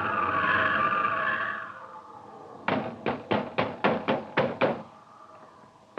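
Rapid knocking on a door, a radio sound effect: about eight quick, even knocks starting a bit under three seconds in, after a held, wavering tone fades out over the first two seconds.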